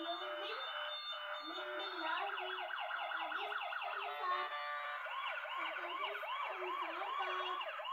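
Electronic siren sound effect playing from a smartphone's speaker: quick yelping pitch sweeps start about two seconds in, then change past the middle to a slower rising-and-falling wail, about two to three cycles a second.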